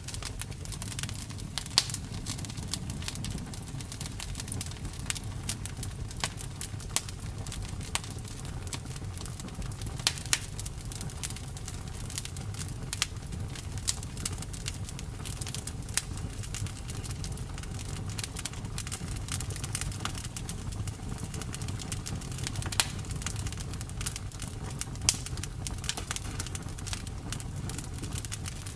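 Campfire crackling: irregular sharp pops and snaps over a steady low rumble of the flames.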